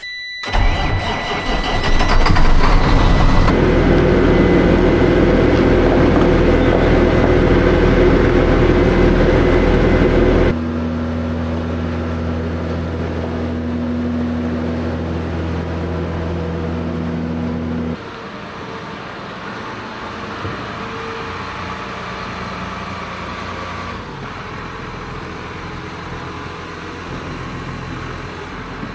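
Tractor-driven grain vacuum starting up and running loudly. The sound changes abruptly about ten seconds in to a steadier low engine hum, and drops again near eighteen seconds.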